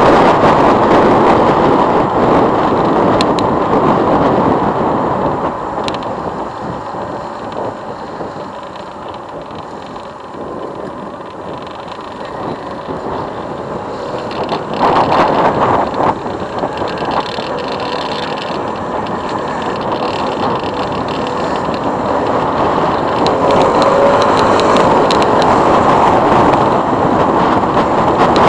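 Riding noise from a motorcycle-mounted camera: wind and road noise, loud at the start, easing in the middle as the bike slows, with a brief louder patch, then building again toward the end.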